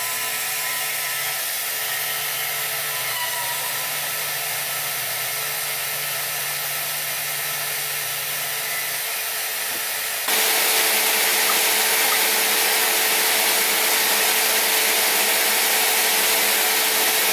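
DeWalt band saw cutting through a thin-walled stainless steel elbow: a steady whir of the blade and motor with a faint steady hum. About ten seconds in it cuts abruptly to a louder, hissier steady cutting sound.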